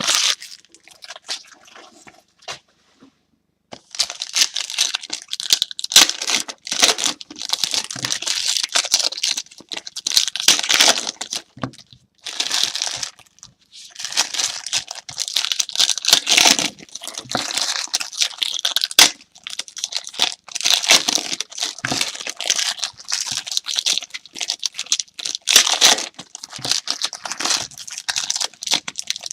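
Trading-card pack wrappers being torn open and crinkled by hand, in repeated rustling bursts with a few short pauses.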